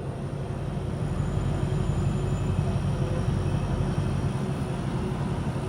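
Low steady rumble of road traffic mixed with wind noise, swelling slightly in the middle as a vehicle passes.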